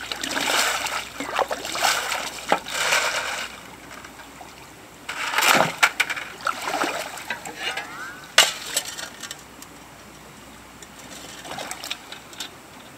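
Shovel digging gravel from a shallow creek bed: water splashing and sloshing in irregular bursts as loads are scooped, with stones scraping and one sharp clink a little past halfway.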